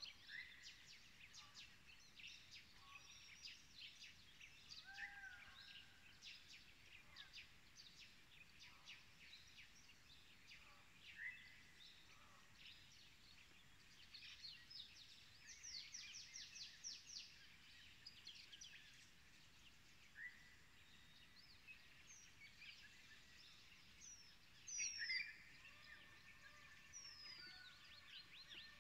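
Faint wild birdsong: many quick, high chirps with a few short sliding whistles, busiest in the middle and near the end.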